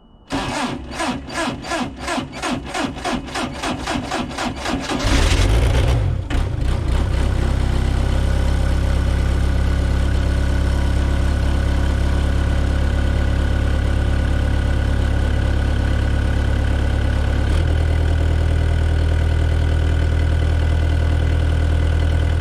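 Excavator's diesel engine being cranked by its starter, about four strokes a second, for roughly four and a half seconds. It catches about five seconds in and settles into a steady idle, with a small change in its note about 17 seconds in.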